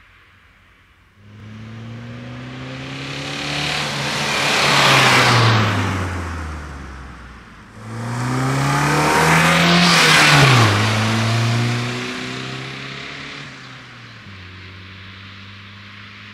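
Ford Fiesta Mk3's 1.1-litre four-cylinder engine through a Fox stainless-steel sport exhaust as the car drives past twice, each time swelling to a peak and dropping in pitch as it goes by. Near the end it settles to a steady low hum. The note is quiet and subtle.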